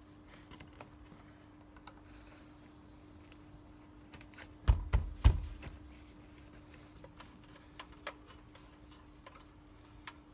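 Hands tucking alarm sensor wire behind a van's door-pillar trim and pressing the trim back: scattered light clicks and rustles, with three heavier thumps close together about five seconds in.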